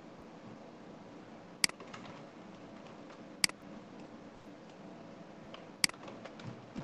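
Three sharp single clicks of a computer mouse button, about two seconds apart, over a faint steady room hum.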